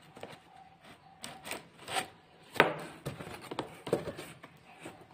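Cardboard box of a stand mixer being pried open by hand: uneven scraping and rubbing of cardboard, broken by several sharp scrapes, the loudest about two and a half seconds in.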